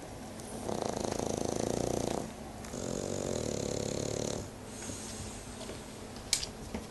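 French bulldog snoring in its sleep: two long snores of about a second and a half each, with a short gap between, followed by quieter breathing. There is a brief sharp click near the end.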